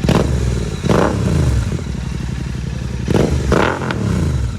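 Royal Enfield Continental GT650's 648 cc parallel twin with a Red Rooster exhaust, its dB killers removed, revved in about four sharp throttle blips. Each blip falls back in pitch toward idle.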